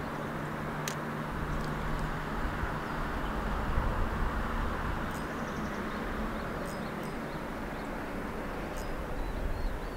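Steady rush of flowing river water around a wading angler, with a low engine rumble of passing road traffic underneath and a few faint, short high chirps.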